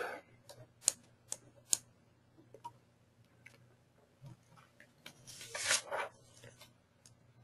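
Quiet computer mouse and keyboard clicks: three sharp clicks in the first two seconds and a few fainter ones later, with a short soft rushing noise about five and a half seconds in.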